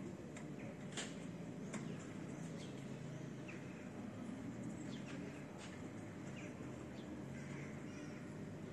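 Outdoor garden ambience: scattered short bird chirps over a steady low hum.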